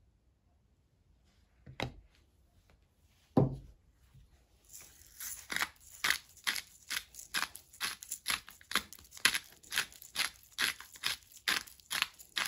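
Two knocks, the louder one about three and a half seconds in, then a hand-twisted salt mill grinding coarse salt over a bowl, in short even turns at about two a second.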